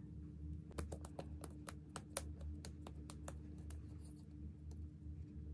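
Fingertips patting and tapping skin on the face during a skincare routine: a quick run of about fifteen light taps between about one and three seconds in, over a steady low hum.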